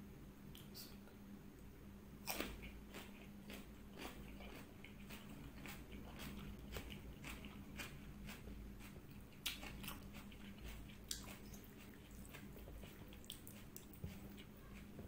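Close-miked eating: crisp bites and chewing of raw cucumber slices, a run of sharp crunches with the strongest about two and a half seconds in and again near ten seconds.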